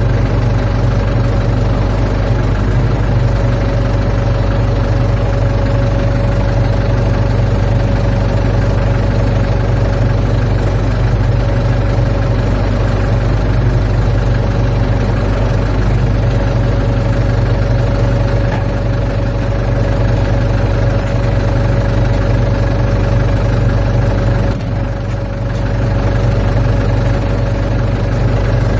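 Ford 755 backhoe's engine running steadily, with a steady whine over the engine note.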